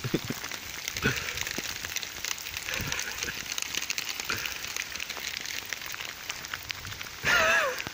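Heavy rain falling on a wet asphalt road: a steady, dense patter of drops splashing on the wet surface. A person's voice sounds briefly near the end.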